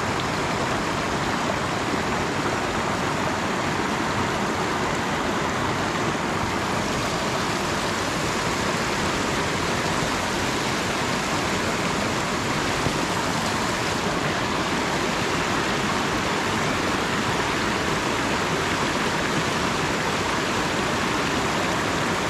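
River water rushing steadily over and between rocks, a continuous even splashing rush.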